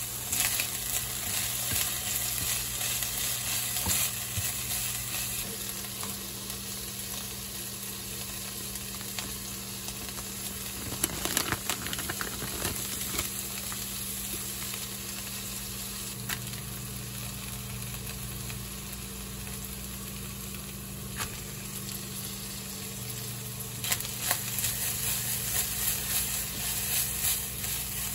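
Shrimp, ground pork and sliced onion sizzling in a frying pan while a spatula stirs and scrapes, over a steady low hum. About eleven seconds in there is a burst of crinkling from a plastic sauce packet. Near the end the stirring grows busier as bean sprouts and green onions are tossed in.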